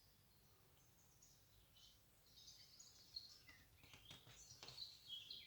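Faint garden birdsong: short high chirps and twitters coming in about two seconds in, over a near-silent background, with a few soft clicks.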